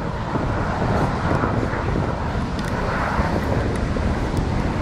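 Jet roar from a formation of nine Canadair CT-114 Tutor single-turbojet trainers passing overhead, heard as a steady rushing noise that swells a little about three seconds in. Wind buffets the microphone throughout.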